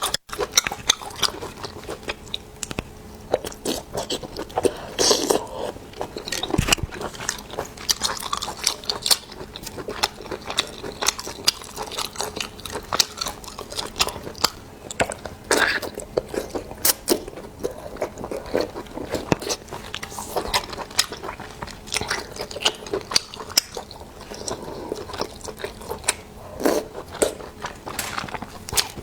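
Close-miked chewing and biting of seafood, with many sharp, irregular wet clicks and smacks of the mouth.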